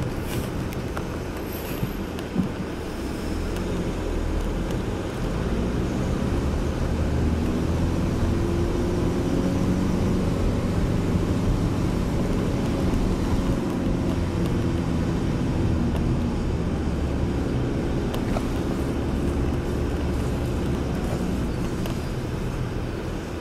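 Car engine and road noise heard from inside the cabin while driving. The engine note rises a little as the car picks up speed, then eases again.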